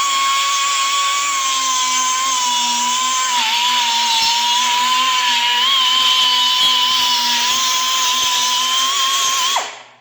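High-speed rotary power tool running a bit to clear a burr from a tailgate hinge hole: a steady high-pitched whine that sags slightly in pitch now and then as it cuts, then winds down and stops near the end.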